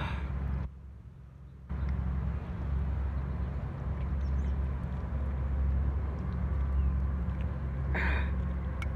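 Boat engine running steadily, a low rumble that gets suddenly louder about two seconds in.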